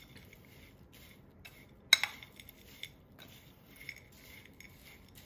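A metal spoon stirring a mixture of rolled oats, nuts and seeds in a ceramic bowl: soft rustling with occasional clinks of the spoon against the bowl, the sharpest about two seconds in.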